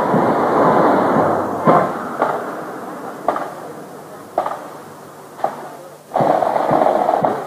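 Worn videotape soundtrack breaking up in a tape glitch: a rough noisy hiss fades away, broken by sharp clicks about once a second. A loud burst of rough noise comes near the end.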